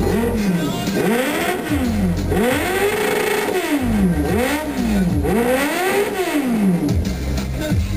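Sport motorcycle engine revved again and again, its pitch rising and falling in a string of quick blips. Music plays underneath.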